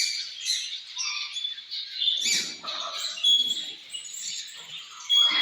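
Birds chirping and calling in short, repeated notes, several overlapping.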